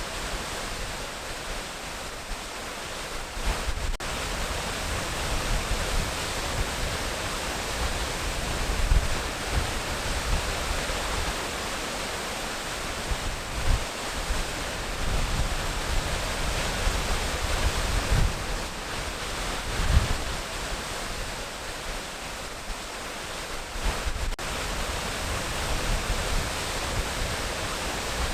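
Waterfall rushing steadily: a continuous hiss of falling water, with irregular low rumbles.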